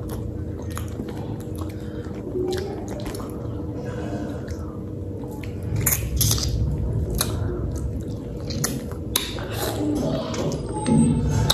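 People eating ripe, juicy mangoes: wet biting and chewing, with irregular smacks and clicks.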